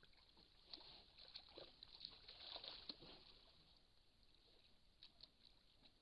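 Faint splashing and sloshing of water as a brown bear mother and cub wade and bathe in a shallow forest pool. The splashes come irregularly through the first three seconds, with a few more about five seconds in.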